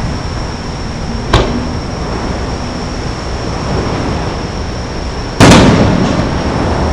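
Aerial firework shells exploding: a short sharp bang about a second in, then a much louder boom about five and a half seconds in that dies away over a second or so.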